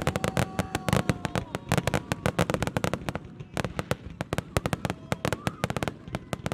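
Aerial fireworks in a dense barrage: a rapid, unbroken run of sharp cracks and bangs, several a second.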